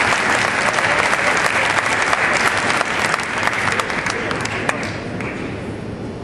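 Spectators applauding after a point in a table tennis match; the clapping dies down after about five seconds.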